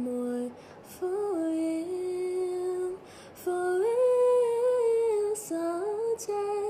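A young woman singing solo with no accompaniment, in a soft, sleepy voice. She holds long notes that bend and slide between pitches, with two short pauses between phrases.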